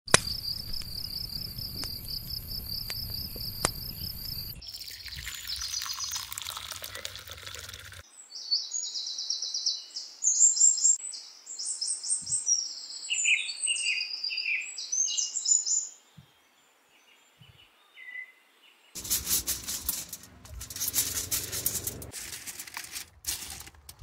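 Birds singing in short, quick chirping phrases, after a steady high-pitched trill and a soft hiss at the start. A pause, then a run of crackling near the end.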